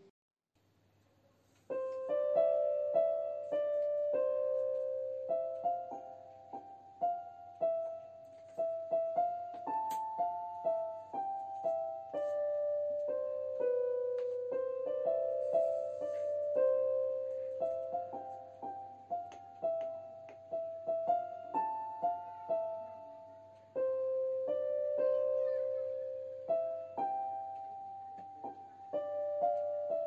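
Background piano music: a gentle melody of struck notes that starts about two seconds in after a brief hush.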